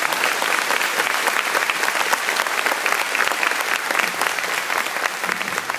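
Audience applauding: dense, steady clapping with sharp individual claps close by, easing slightly near the end.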